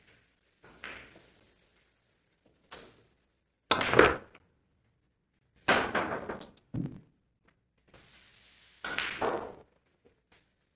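Pool balls on a billiard table: a handful of separate sharp knocks and clacks as balls are struck and hit each other and the cushions, the loudest about four and six seconds in.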